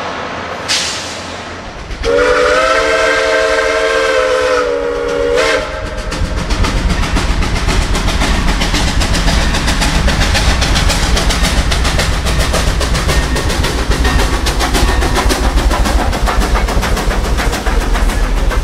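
A steam locomotive's whistle sounds one long multi-note chord for about three and a half seconds. The locomotive then passes under power, followed by its train of freight cars clattering along the rails.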